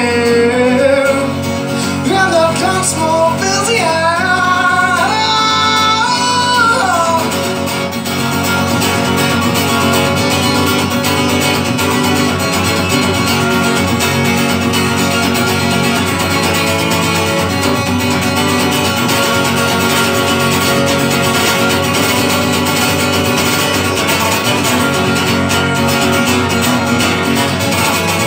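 Live music with an acoustic guitar strummed steadily through an instrumental break. A melody line rises and falls above it for the first seven seconds or so, then the strumming carries on alone.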